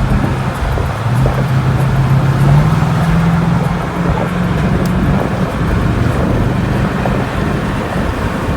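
Engine and road noise inside a moving car, with a steady low drone that steps up in pitch over the first few seconds.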